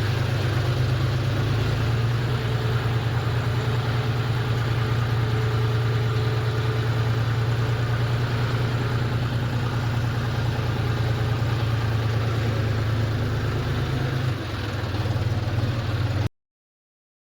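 An engine idling steadily with a deep hum. It drops slightly about 14 seconds in and cuts off abruptly about two seconds later.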